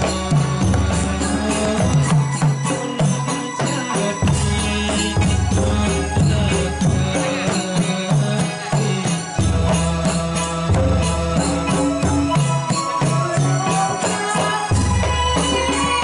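Male voice singing a Javanese Ndolalak folk song into a microphone, with a band behind him: a heavy repeating drum beat and jingling percussion.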